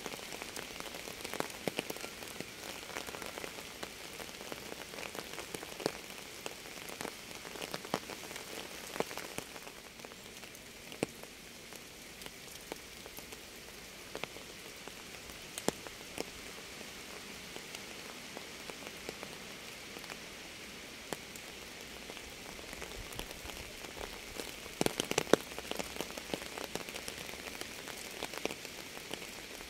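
Steady rain, with single drops tapping sharply close by throughout and a brief flurry of louder drops about 25 seconds in.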